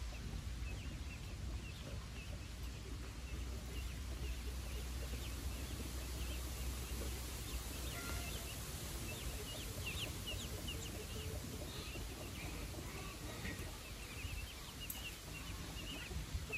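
Chickens and their chicks feeding: soft clucking and a scatter of short, high cheeps.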